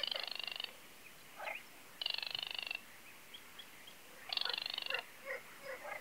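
Three dry, rattling calls from a marsh animal, each under a second long, about two seconds apart, with faint short chirps between them.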